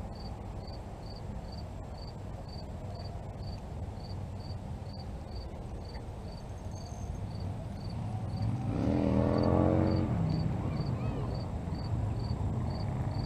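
A cricket chirping steadily, about two short high chirps a second, over a low outdoor rumble. About nine seconds in, a louder low drone with a falling pitch swells and fades.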